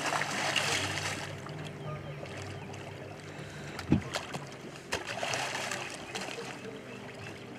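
Hooked paddlefish thrashing and splashing at the side of the boat as it is pulled in and gaffed, with a sharp knock about four seconds in, over a steady low motor hum.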